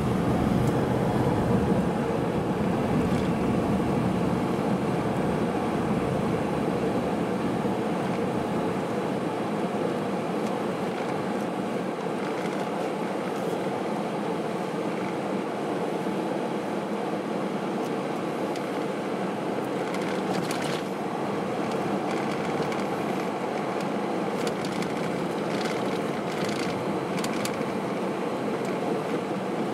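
Steady cabin noise of a car driving along a road: an even rumble of engine and tyres on asphalt.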